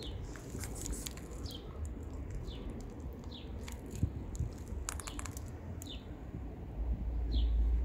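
Kittens eating from a bowl, with clusters of sharp clicking crunches, while a small bird repeats a short falling chirp about once a second. A low rumble swells near the end.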